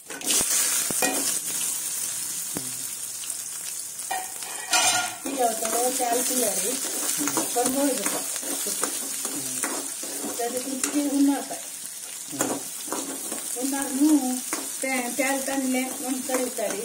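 Cubed onions sizzling in hot oil in an aluminium kadai, the sizzle jumping up as they go in at the start. A steel spoon clinks and scrapes against the pan as they are stirred.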